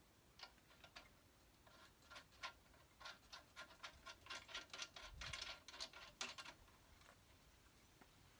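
Faint clicks and taps of bolts and hardware against a license plate on a spare-tire-mounted plate bracket. They come sparsely at first, then turn into a quick run of rapid clicks about three seconds in that lasts a few seconds.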